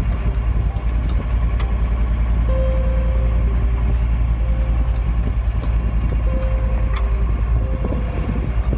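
Wind buffeting the microphone aboard a sailboat under way, a steady low rumble with the rush of the sea beneath it.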